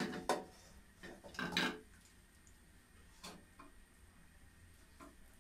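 Pieces of marinated chicken being lifted from a steel bowl and set into a nonstick frying pan: a few separate soft knocks and clicks, the loudest in the first two seconds, with single ones about three and five seconds in.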